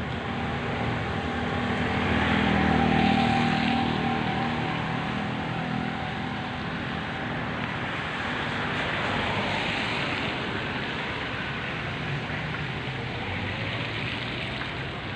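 A motor vehicle's engine passes close by over a steady rushing noise, loudest about three seconds in and then fading; a second, softer pass swells around ten seconds in.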